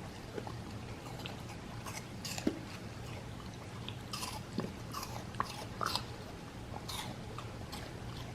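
A Bernedoodle puppy chewing, with irregular crunches, over a steady low hum.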